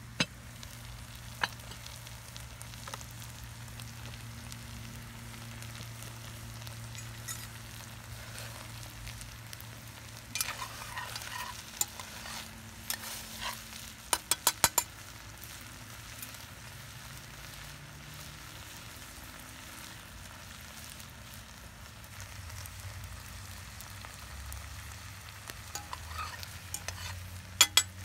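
Rice pilaf sizzling in an enamelled cast-iron Dutch oven as a metal spoon stirs and scrapes through it. A couple of sharp metal clinks from the lid near the start, and a quick run of about six metallic taps about halfway through.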